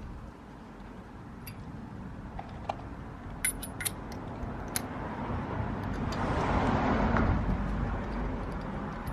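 Sharp metallic clinks of lug nuts and tools being handled during a wheel install, a few single clicks and then a quick cluster about three and a half seconds in. A broad swell of noise then rises and fades over about three seconds.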